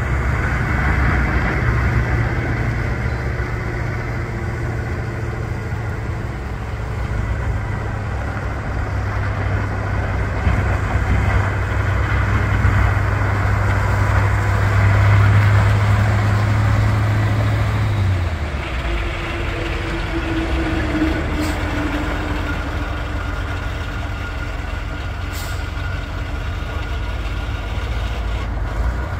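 The 1970 Ford 8000 dump truck's engine running steadily as the truck drives slowly across a gravel lot. Its low hum drops to a lower note about two-thirds of the way through as the truck turns away.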